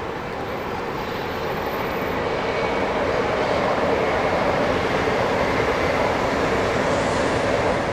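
Passenger train passing at speed: a steady rushing roar of wheels and air that grows louder over the first few seconds, then holds.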